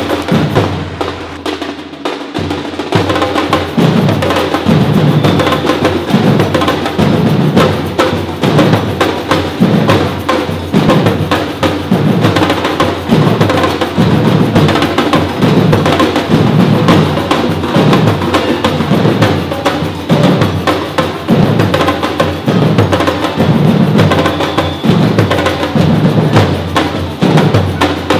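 Brazilian batucada-style percussion ensemble drumming: deep drums strike a steady beat about once a second, coming in about two seconds in, under dense, quicker hand-percussion strokes.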